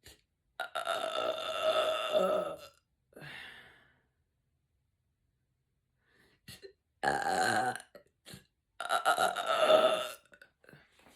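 A woman's loud, drawn-out belches, brought up by carbonated sparkling water: a long burp of about two seconds, a short softer one just after, then after a pause two more loud burps close together near the end.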